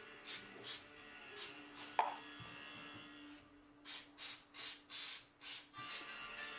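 Aerosol rust remover sprayed onto a rusty axe head in about ten short hissing spurts, a few early on and a quicker run of them in the second half. There is one sharp click about two seconds in.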